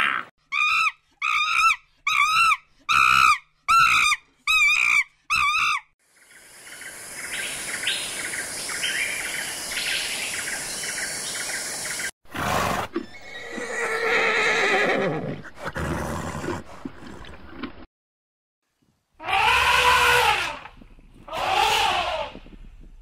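Several animal calls in turn: about eight short, wavering high calls evenly spaced over the first six seconds, then outdoor ambience with bird chirps, then a horse whinnying. Near the end come two loud elephant calls.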